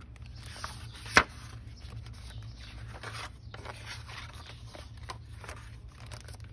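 Pages of a hardcover picture book being turned by hand: paper rustling and sliding, with one sharp click about a second in as the cover or a stiff page flips over.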